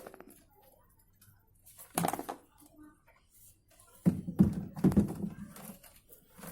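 Handling noises from work on the machine: a single knock about two seconds in, then a run of several knocks and rustles about four to five seconds in.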